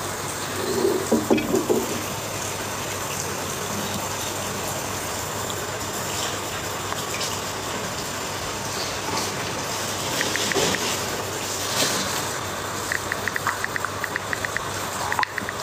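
A steady rushing hiss, like running water. About a second in there is a short low murmur, and near the end a quick run of light clicks.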